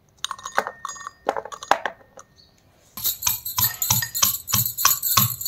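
A pestle pounding garlic cloves in a small mortar, with about four strikes a second starting about three seconds in, after a few scattered knocks and clinks.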